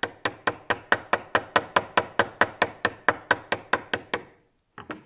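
Ball-peen hammer striking a seized old brake part clamped in a steel bench vise: quick, even metal-on-metal blows, about four a second, that stop about four seconds in, followed by a couple of lighter knocks. The hammering is meant to free the stuck, oil-caked part.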